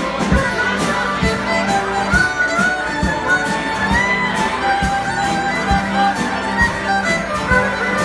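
Live band playing an upbeat folk tune: fiddles carry the melody over a strummed acoustic guitar, with a steady beat about twice a second.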